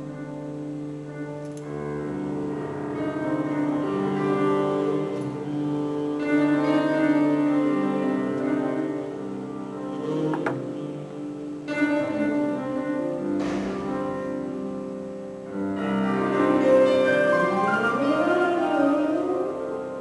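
Slow ambient music on piano and bowed strings: layered held notes with a few struck piano attacks, and near the end a sliding pitch that rises and falls.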